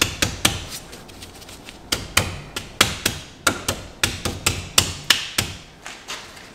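Dodge Grand Caravan front brake caliper and pads clacking against the rotor and mounting bracket as they are wiggled into line with the bolt holes: a run of sharp, irregular knocks, a few a second, with a short lull about a second in.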